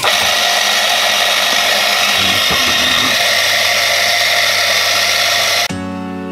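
A power tool's motor running loud and steady with a harsh whir, cutting off abruptly about five and a half seconds in, where music begins.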